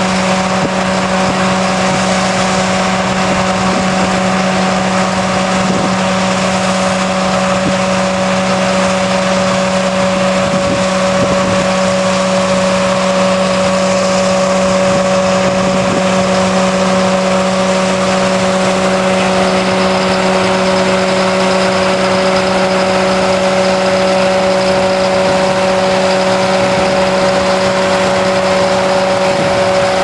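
Tractor engine and the trailed potato harvester it pulls, running steadily under load at a constant pitch, with the broad mechanical noise of the digging and conveying gear over it.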